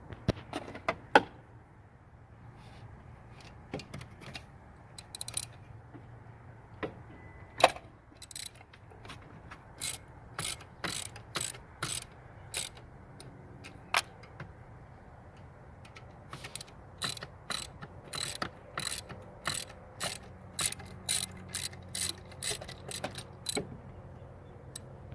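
Hand ratchet wrench clicking as it is worked on a fastener: a few scattered clicks first, then longer runs of about two clicks a second.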